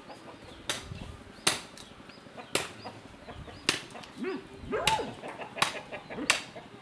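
Sharp chopping knocks on a wooden board, about one a second. Chickens cluck between the strokes.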